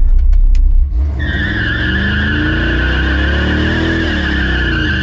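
Loud low rumble of the truck's 350 small-block V8, then about a second in the rear tires break loose into a steady high squeal as the engine revs climb and then ease off.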